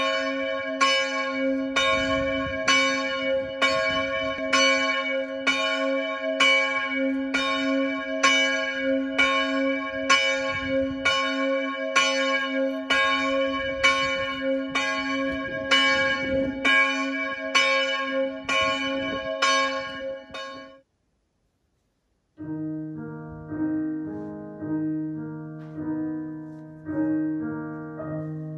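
A single church bell tolling, a little more than one stroke a second, each stroke the same pitch with its hum ringing on between strokes. The tolling cuts off about 21 seconds in, and after a short silence a piano starts playing.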